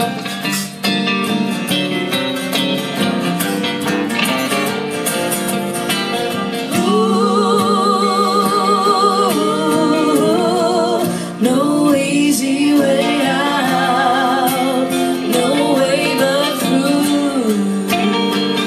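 Live folk band playing an instrumental break between verses, led by guitars. About seven seconds in, a sustained lead melody with a wavering vibrato comes in over the band.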